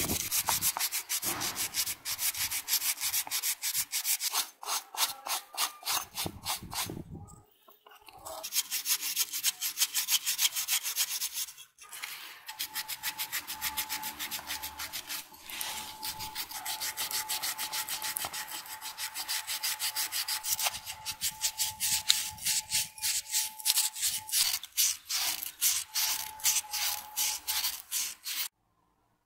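Green abrasive scouring pad scrubbing wet, rusty steel parts of an old tire inflator, scraping rust off in quick back-and-forth strokes. The scrubbing comes in bouts with two short pauses and stops abruptly near the end.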